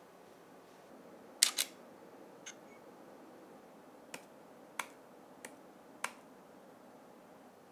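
Camera shutter firing with a sharp double click about a second and a half in, then four lighter single clicks evenly spaced about two-thirds of a second apart, as frames are captured for a stop-motion shoot.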